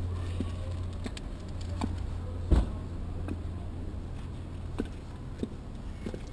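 Eight-inch platform high-heeled boots clicking on concrete in scattered, irregular steps, the loudest about two and a half seconds in, over a steady low rumble that fades about five seconds in.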